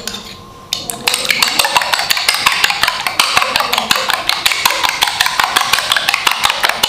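Metal spoon beating raw eggs in a ceramic bowl: a fast, steady clatter of spoon taps against the bowl, starting about a second in.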